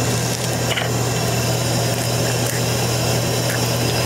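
Steady low electrical hum with an even fan-like hiss from a running Amada Brevis 1212 AJ laser cutting machine and its auxiliary equipment, unchanged throughout.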